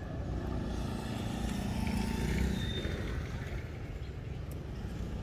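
An engine humming, swelling to its loudest about two seconds in and then easing off, over a steady low rumble.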